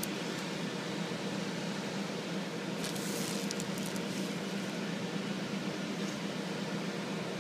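Steady hum of fans in a small room, with a brief rustle about three seconds in.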